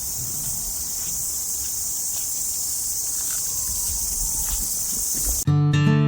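Steady, high-pitched chorus of insects outdoors. About five and a half seconds in it cuts off abruptly and strummed acoustic guitar music starts.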